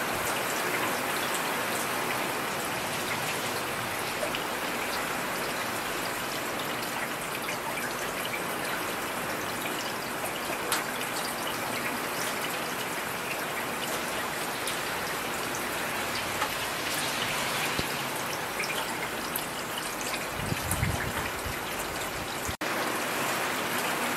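Heavy rain falling steadily as a dense, even hiss, with scattered louder drops ticking close by. A brief low rumble comes in near the end.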